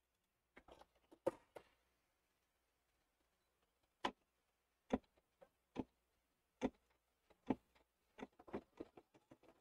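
Scattered light clicks and knocks at irregular intervals, with a quicker cluster near the end: hands handling parts of a home embroidery machine.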